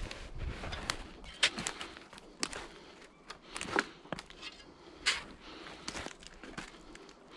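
Footsteps crunching through thin snow and dry twigs on a forest floor, an uneven step about once a second.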